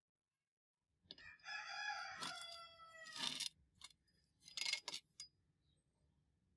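A rooster crowing once: a single drawn-out call that drops slightly in pitch at its end, followed about a second later by a short harsh rasp.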